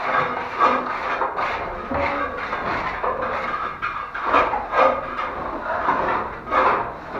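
Hand tool scraping and rubbing wet plaster on a ceiling cornice moulding, in a series of irregular rasping strokes.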